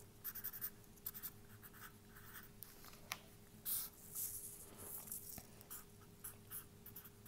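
Sharpie felt-tip marker writing on paper: quiet, short, irregular scratchy strokes with small pauses between them, over a faint steady hum.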